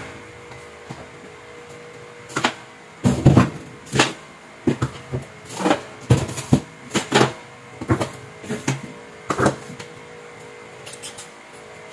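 Soft thumps and knocks, about a dozen in irregular succession, as small plastic bags of water are set into a refrigerator's freezer compartment.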